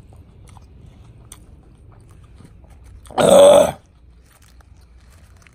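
A man chewing a burger, with faint lip-smacking clicks, then one loud belch lasting under a second about three seconds in.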